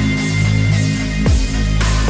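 Background electronic music with a heavy bass line and drum beat, including a deep drum hit that drops in pitch partway through; no vocals.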